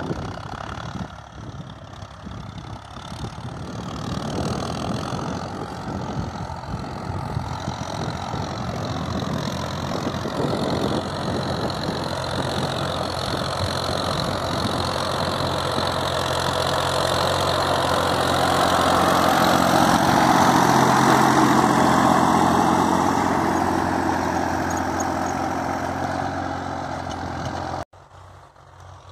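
Massey Ferguson 1035 tractor's three-cylinder diesel engine running steadily as the tractor works across the field, growing louder as it draws near and passes about two-thirds of the way in, then easing off. Near the end the sound drops suddenly to a much fainter engine.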